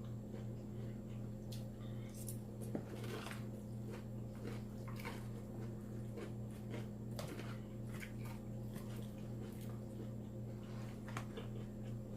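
Close-up chewing and crunching of a salad, with irregular small clicks and crackles, over a steady low hum.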